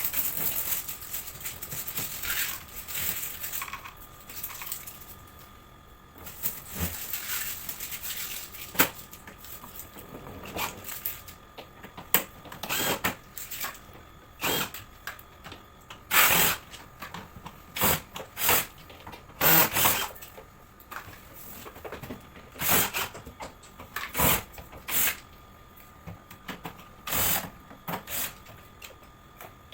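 Hands and tools working on a portable air conditioner's plastic casing while it is being taken apart: irregular short scrapes, rubs and clacks, more frequent in the second half, over a faint steady high tone.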